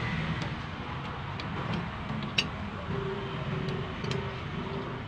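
Light metallic clicks, with one sharp click about halfway through, as the metal rail and pulley parts of a car power window regulator are handled and fitted by hand, over a steady low rumble.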